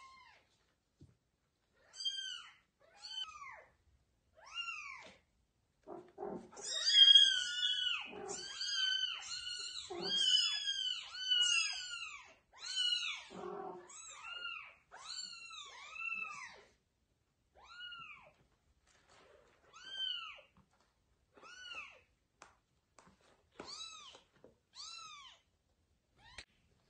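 Young kittens meowing over and over in short, high-pitched calls that rise and fall. In the middle several call at once and it is loudest, with a few lower-pitched meows mixed in. Toward the end the calls come singly, spaced apart.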